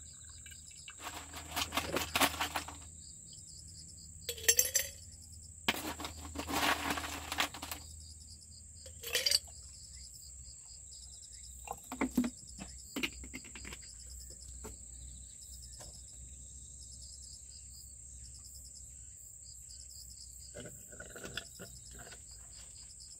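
A steady, high insect trill runs throughout, with scattered clinks and pours of glassware and ice. Near the end, brewed coffee is poured from a glass carafe onto ice in a glass jar.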